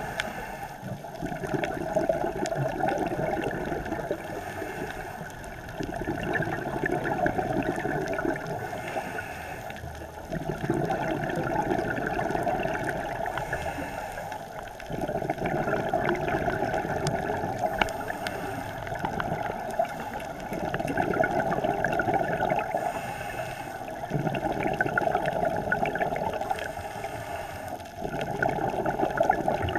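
A scuba diver breathing underwater through a regulator, heard through the camera housing. The exhaled bubbles make a gurgling rush that swells and fades in a steady cycle about every four seconds.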